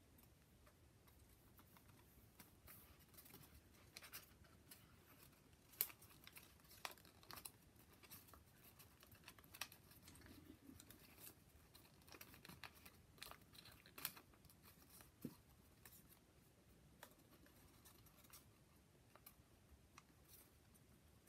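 Faint rustling and crinkling of folded origami paper units being handled and slotted together, with scattered sharp paper crackles, the loudest about six seconds in and again around fourteen seconds.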